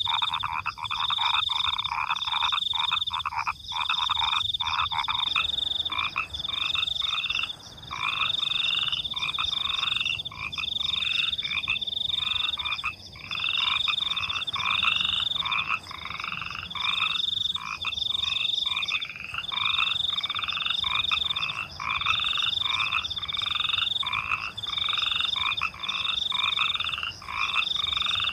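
Night chorus of frogs croaking in repeated calls, about one a second, with crickets chirping. A dense, rapid pulsing call stops about five seconds in.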